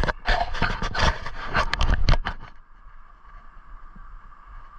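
Close rustling and scraping of pine branches and gear against the microphone for about two and a half seconds, then it stops.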